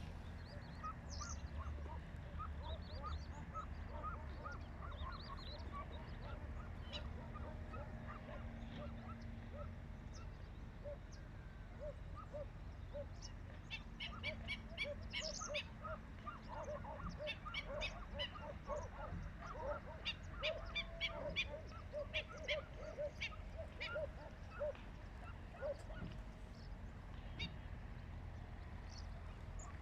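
Many birds calling in short, repeated notes, overlapping one another; the calling gets busier and louder about halfway through.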